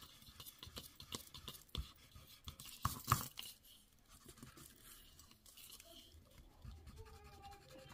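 Sand eraser rubbing back and forth on cardstock to sand off a smudge of stray ink: a faint, quick scratching, loudest about three seconds in.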